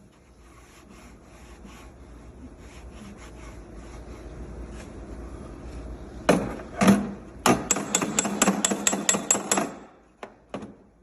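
Sheet-metal quarter panel being worked with a slapper or hammer against a dolly held behind it. A few seconds of quiet rubbing on the metal come first. Then two hard strikes and a fast run of about a dozen ringing metallic taps, about five a second, knocking down high spots in the panel.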